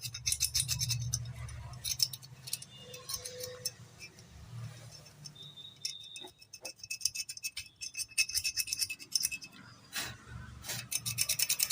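Scattered light metallic clicks and clinks of tools and parts being handled while working on a small water pump motor during a bearing replacement. They come in clusters near the start and again in the last few seconds, over a faint low hum.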